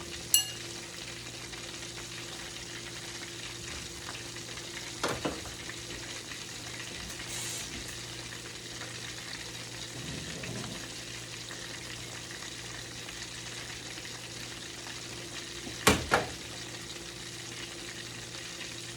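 Fish and shrimp frying in a pan, a steady sizzle over a low hum. A few short sharp knocks break in, once right at the start, once about five seconds in, and loudest about sixteen seconds in.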